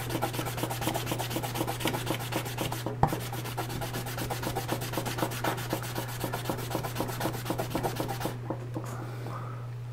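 Plastic Teraminx puzzle piece being wet-sanded by hand on 400-grit wet sandpaper laid flat on a table: quick back-and-forth scraping strokes that take out the rough Dremel sanding marks, stopping about eight seconds in. A single click about three seconds in, and a steady low hum underneath.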